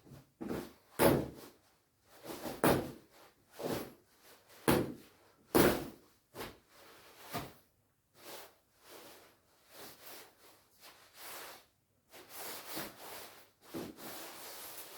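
Shiny down jacket fabric rustling and swishing as it is handled, in a run of irregular swishes that are loudest in the first few seconds and then softer. Near the end they turn into a steadier rubbing hiss.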